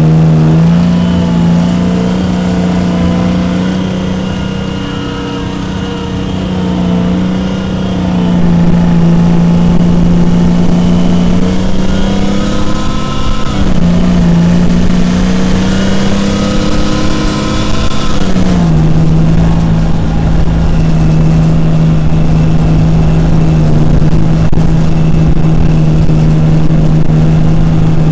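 Tank's engine running as the tank drives, with a higher whine over it. The engine note dips and rises several times, then holds steady about two-thirds of the way through, when the whine drops away.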